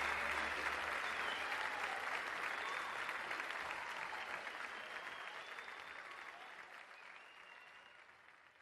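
Large audience applauding, the applause fading out steadily.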